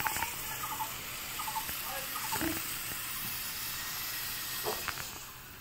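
Gas stove burner flame hissing steadily as pointed gourds char over it on a steel rod, with a few faint clicks; the hiss drops about five seconds in.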